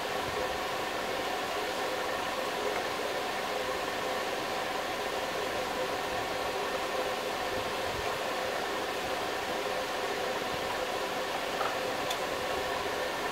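Steady hum of a running machine: an even hiss with several constant tones under it, not changing in level or pitch.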